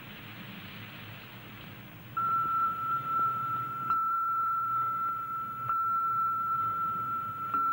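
A rain-like hiss fades away over the first two seconds. Then a steady, high-pitched electronic beep tone starts abruptly and holds on one pitch, with faint clicks about every two seconds.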